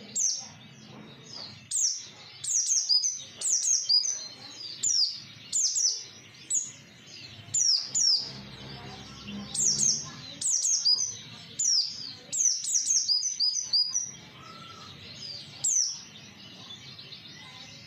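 White-eye (pleci) song used as a lure: quick runs of sharp, high chirps, each dropping in pitch, in the rapid 'nembak' (shooting) style, with short gaps between the runs.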